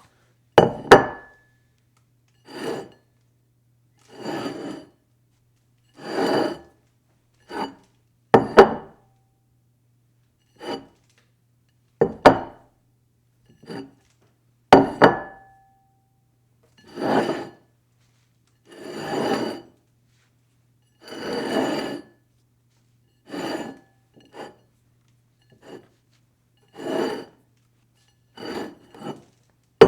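A dish slid across a table again and again: a run of short scraping slides, about one every couple of seconds. A few of them begin with a sharp clink that rings briefly.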